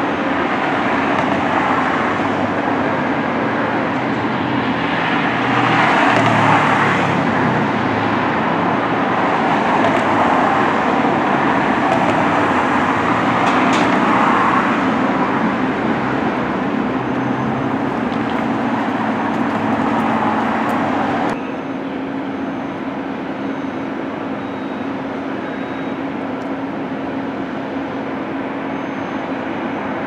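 Steady mechanical rumble of a vehicle running, swelling a little in places and dropping abruptly in level about two-thirds of the way through.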